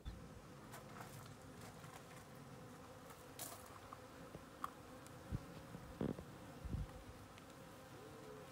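Honeybees buzzing around opened wooden hive boxes: a steady, faint hum, with a few soft knocks and thumps. Near the end the pitch bends as a bee flies close past.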